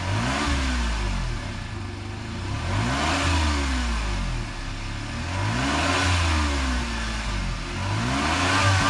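Honda N-ONE's three-cylinder kei-car engine, warmed up, revved and let fall back about four times through its exhaust, each rev rising then dropping back toward idle.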